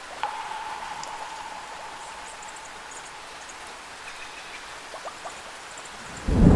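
Steady rain falling, with scattered high drips and a held mid-pitched tone for about two seconds near the start. Near the end a loud clap of thunder breaks in suddenly and rumbles on.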